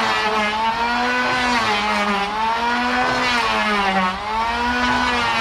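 Large band saw cutting a long hardwood plank. A steady, loud machine whine sags in pitch and recovers every couple of seconds as the cut loads the saw.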